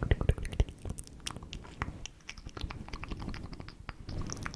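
ASMR mouth sounds into a close microphone: quick wet clicks and smacks of the lips and tongue, packed tightly for the first second and sparser after.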